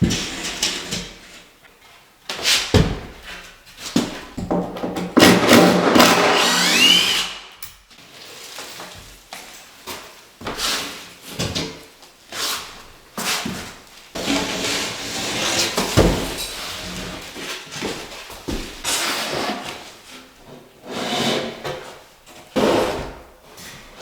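Irregular knocks, clatter and scraping of hands-on building work, with a dense stretch of scraping about five seconds in that ends in a short rising squeal.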